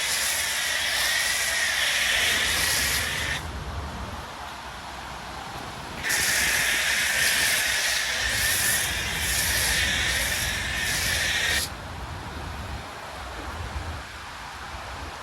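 Snow foam lance on a pressure washer spraying foam with a steady hiss, in two long bursts: the first cuts off about three seconds in, the second starts about six seconds in and cuts off near twelve seconds.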